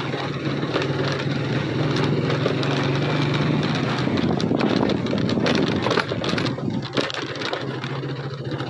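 A small motorcycle engine running steadily while the bike rides along, mixed with rushing wind and crackling road noise on the microphone.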